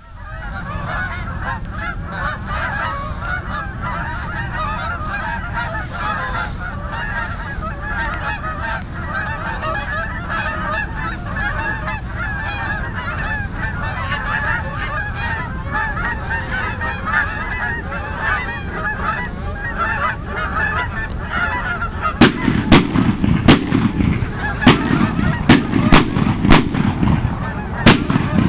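A flock of Canada geese honking in a dense, continuous chorus. Over the last six seconds, about eight loud sharp bangs go off among the calls, typical of shotgun shots fired at geese coming in.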